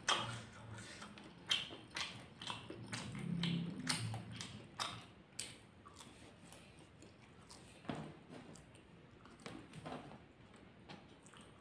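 Close-up eating sounds of sausage fried rice mixed with raw bird's-eye chilies, eaten by hand: wet chewing, lip smacks and small crunches. The clicks come thick and fast for the first six seconds or so, then thin out to a few.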